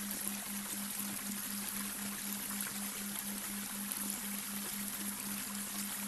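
Babbling brook, water running and trickling steadily, with a low steady tone underneath that pulses about four times a second: a delta brainwave tone.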